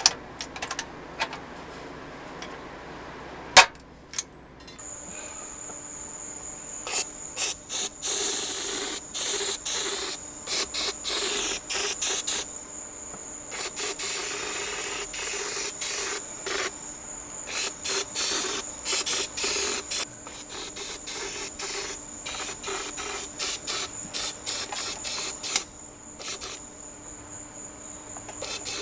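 Powder-coating spray gun hissing in bursts that start and stop many times, over a steady high tone. In the first few seconds, clicks of hand tools on metal, with one sharp snap about three and a half seconds in.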